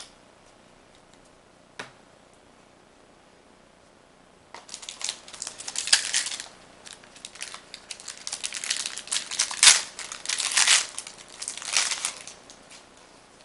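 Foil booster-pack wrapper crinkling and tearing as it is opened by hand, in a run of loud crackly bursts lasting about eight seconds, after a quiet start with one small click.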